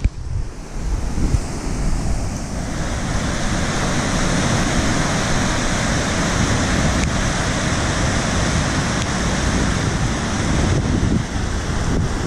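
Floodwater rushing over a concrete spillway and churning in a whirlpool, a steady loud rushing, with wind buffeting the microphone.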